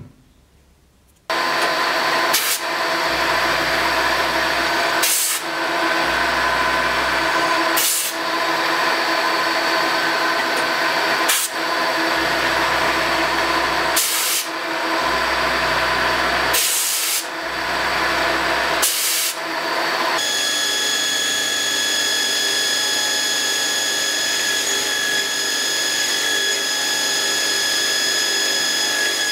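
Milling machine running while machining a small steel part, heard in several short takes with abrupt changes between them. About twenty seconds in it gives way to a belt grinder running with a steady high whine.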